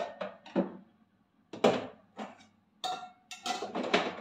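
Stainless steel kitchen bowls clanking against each other as they are lifted out of a drawer: a handful of sharp knocks, one bowl ringing briefly about three seconds in, then a denser clatter and rustle near the end.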